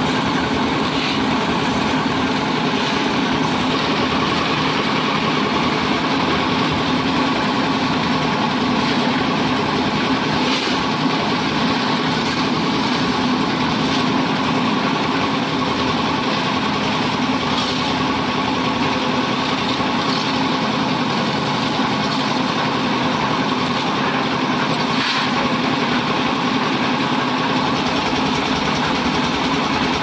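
Engine-driven concrete mixer running steadily with its drum turning, its small stationary engine making a continuous even drone, with a few faint knocks.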